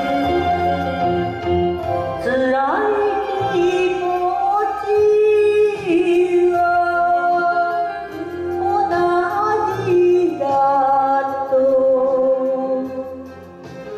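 A woman singing a Japanese song into a handheld microphone over instrumental accompaniment, in phrases with long held notes and a short pause near the end.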